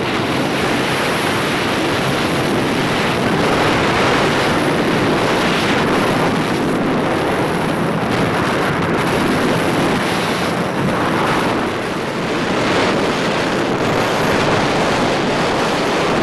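Wind rushing over the microphone of a motorcycle riding along a highway at speed, a loud steady rush with road noise mixed in.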